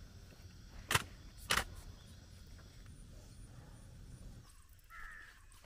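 Two sharp metallic clinks about half a second apart, about a second in, from a metal lid being fitted onto a cooking pot, then a quiet open-air background with a low steady rumble.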